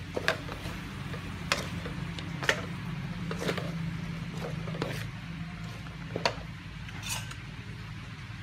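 A spatula stirring food in a metal wok, knocking and scraping against the pan about once a second, over a steady low hum.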